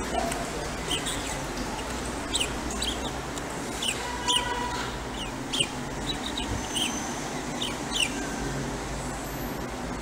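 Budgerigar giving short, sharp chirps, scattered irregularly about a dozen times, over a steady background hiss.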